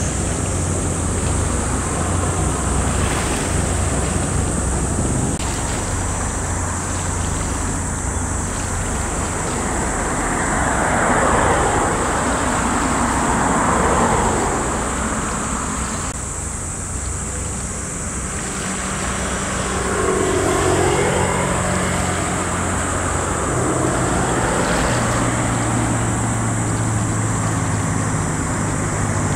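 Waterfront ambience: a low, steady engine drone with wind on the microphone, and a vehicle passing twice, around the middle and about two-thirds through.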